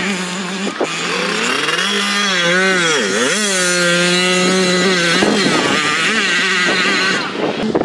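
Dirt bike engine revving hard as it is ridden across a dirt field, its pitch dipping sharply about three seconds in, then climbing back and holding high before it eases off near the end.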